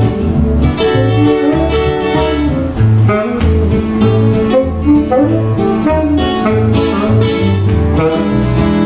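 Instrumental break played on two acoustic guitars and a saxophone: the saxophone plays a melody line over a steady strummed rhythm with a repeating bass line.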